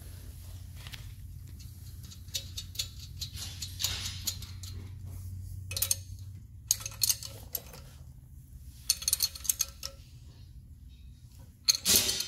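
Bursts of quick metallic clicks and clinks from a wrench working the nuts that hold a differential third member to the axle housing, in five or six short clusters with the loudest near the end. A low steady hum underneath fades out about halfway through.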